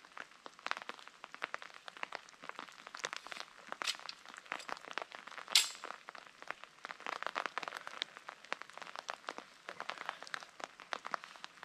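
Rain pattering: a dense, irregular stream of small ticks, with one sharper click about five and a half seconds in.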